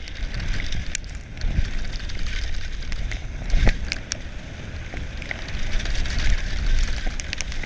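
Wind buffeting the camera microphone over the tyres of a Specialized Demo 7 downhill mountain bike rolling fast on a dirt trail, with scattered clicks and rattles from the bike and one sharper knock about three and a half seconds in.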